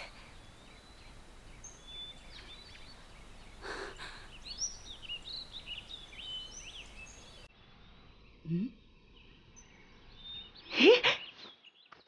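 Wild birds chirping in outdoor ambience, with many short high calls, until the background cuts off about halfway through. After that comes a short low rising sound, then near the end a brief loud voice-like cry that rises in pitch.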